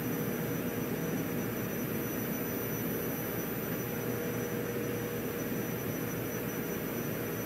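Steady background hiss with a faint constant hum tone, unchanging throughout: room or recording noise, with no event in it.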